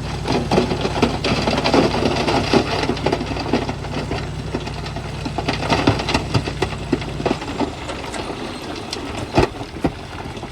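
Bulldozer's diesel engine running steadily under a constant clatter of rock and metal knocks; the engine hum stops about seven seconds in, leaving the clatter and one sharp knock near the end.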